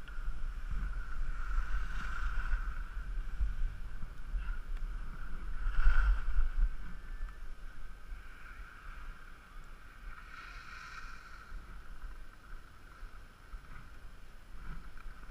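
Skis sliding and scraping over groomed snow, with wind rumbling on the microphone; loudest about six seconds in.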